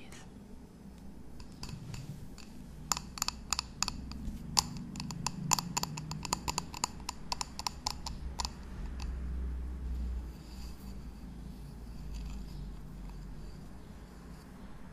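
Fingernails tapping and scratching on a white ceramic bowl held close to the microphone: a quick, irregular run of sharp clicks for about five seconds, followed by softer rubbing and low handling noise as the bowl is moved.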